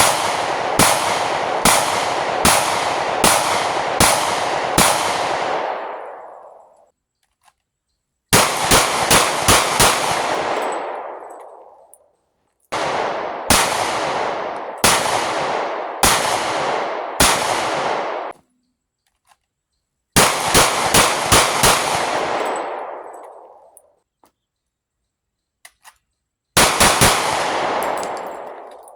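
Gunfire at a shooting range: five strings of rapid shots, each shot a sharp crack, with a long echoing roll-off after every string and pauses of about two seconds between them.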